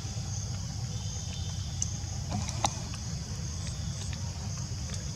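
Outdoor ambience: a steady high insect drone over a low rumble, with a couple of short sharp clicks about two and a half seconds in.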